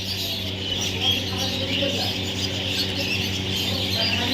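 Baby parrot making a steady run of high, squeaky chirps and calls, over a steady low hum.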